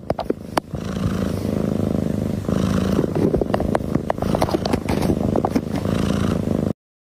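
Domestic cat purring close to the microphone, with rustling and scratching of the cardboard box it is rolling in; the sound cuts off suddenly near the end.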